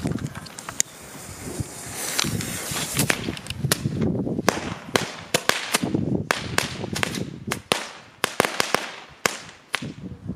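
WECO Knallfrösche (jumping-jack firecrackers) going off: from about two seconds in, a rapid, irregular string of sharp small bangs.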